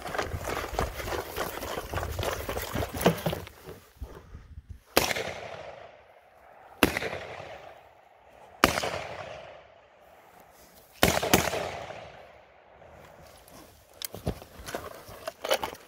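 AR-15-style rifle fired in single, spaced shots, about one every one to three seconds, each report echoing off the field. At first the shots come among the rustle and rattle of the shooter moving with his gear.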